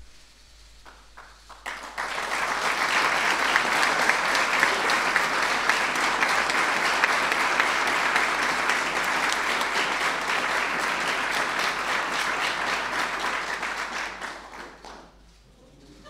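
Audience applauding: a few scattered claps, then sustained applause for about twelve seconds, dying away near the end.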